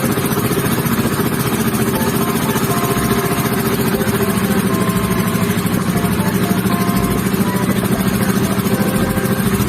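A small passenger boat's engine running steadily under way, with a fast, even throb.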